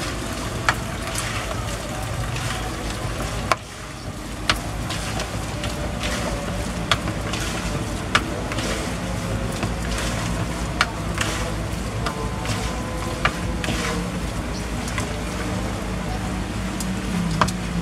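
A spatula scraping and knocking against a plastic basin while a wet, clumpy cotton-and-flour fishing bait is stirred, in sharp clicks every second or so. A steady low hum runs underneath.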